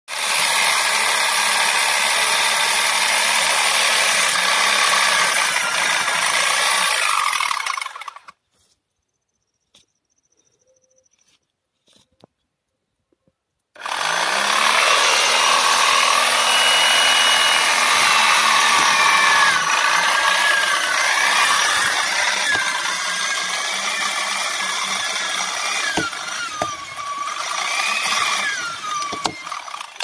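Electric chainsaw cutting into a tree trunk, its chain running through the wood with a steady, high, rasping whine. It stops about eight seconds in and leaves about five seconds of near silence. Then the motor spins back up with a rising whine and cuts again, trailing off unevenly near the end.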